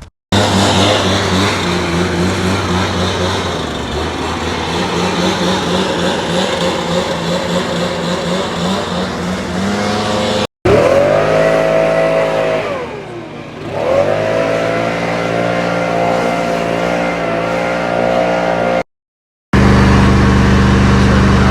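An engine running close by, its steady hum cut off abruptly twice by edits; partway through its pitch sags and then climbs back up as the engine slows and picks up speed again.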